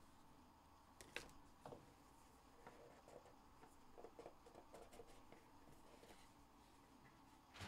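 Faint handling sounds of a cardboard trading-card hobby box being unwrapped and opened by hand: a few soft clicks and small rustles, with a sharper click at the end.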